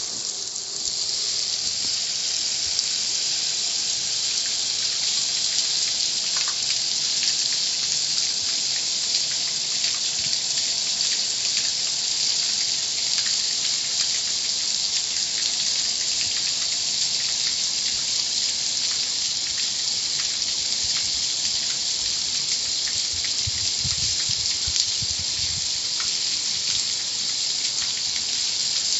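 Car wash water jets spraying steadily: an even, high hiss of pressurised water that holds without a break.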